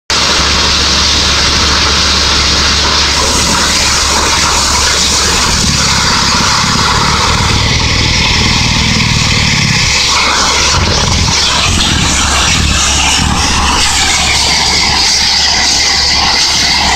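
Horizontal directional drilling rig running, turning its drill pipe to pull a 650 mm hole opener through the ground: a loud, steady mechanical drone with a dense hiss over it.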